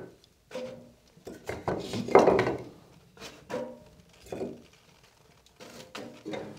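Wooden kindling sticks being laid into a wood-burning stove's firebox, knocking against each other and the metal stove in a series of separate clunks, the loudest about two seconds in.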